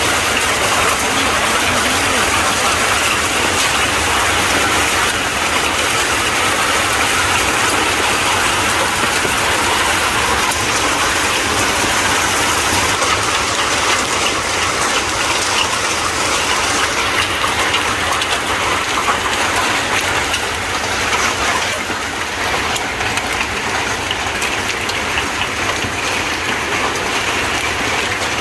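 Hailstorm: hailstones and rain falling hard, a loud steady rush of many small impacts that eases slightly about three-quarters of the way through.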